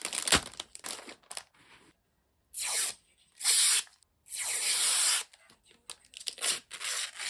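Parcel packaging being torn open by hand: several separate rips, the longest about a second, with crinkling and short crackles in between and near the end.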